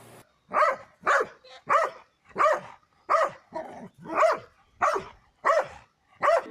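A dog barking repeatedly, about nine short barks spaced roughly two-thirds of a second apart.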